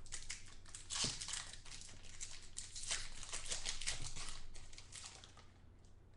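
Plastic crinkling and rustling as trading cards and their wrapper or sleeves are handled, a dense crackle that fades out near the end.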